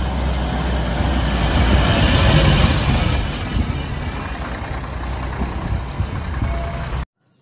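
Rear-loader garbage truck driving past with a steady low engine rumble. It gets louder about two seconds in as the truck comes close, then eases and cuts off abruptly near the end.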